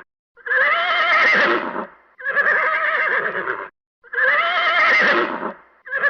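Horse whinnying over and over: about four neighs in a row, each about a second and a half long, with a quavering, shaky pitch.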